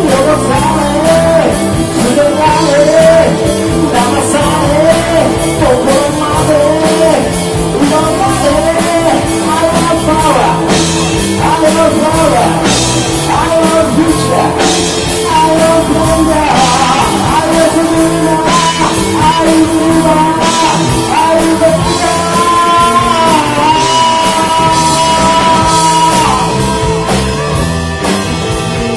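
Rock band playing live, with singing over the band.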